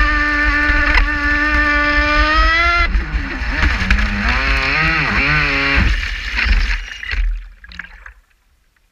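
Traxxas Spartan RC boat's electric motor whining at high speed over rushing water. About three seconds in the pitch drops and wavers up and down several times. It then dies away as the boat coasts to a stop, and the sound fades out near the end.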